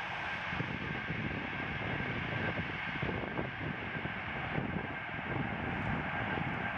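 Distant electric train approaching along the main line: a steady rushing hum with a high, even whine over it, and wind buffeting the microphone.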